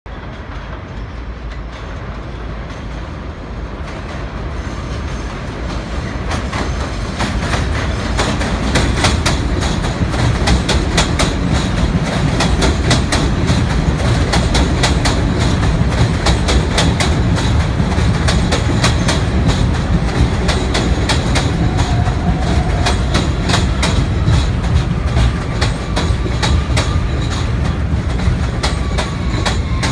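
New York City subway N train approaching on elevated track and running in alongside the platform. Its rumble grows over the first several seconds, then the wheels clatter over rail joints in quick irregular clicks. Near the end a falling whine comes in as the train slows.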